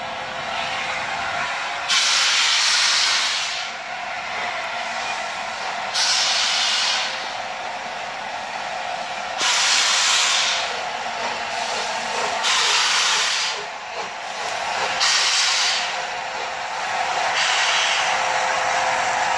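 Steam locomotive pulling away slowly, its exhaust coming as long hissing blasts of steam, the first two about four seconds apart, later ones closer together as it gathers speed, with steam also venting low at the front from its cylinder drain cocks. A steady hiss and a faint steady tone run underneath.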